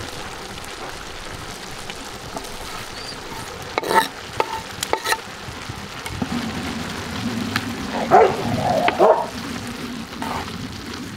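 Minced meat with green chilli peppers and greens sizzling steadily in a hot pan, with a few sharp clicks about four and five seconds in and a short warbling sound just after eight seconds.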